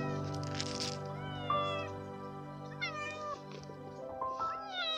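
A thin stray tabby kitten meowing several times, begging for food, over steady background music.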